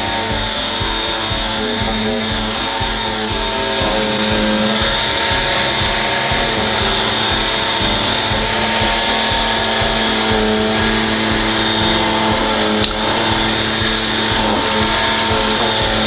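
Belife S11 cordless stick vacuum with a brushless motor running steadily, with a constant motor whine, as its powered floor brush sucks spilled coffee grounds off a tile floor.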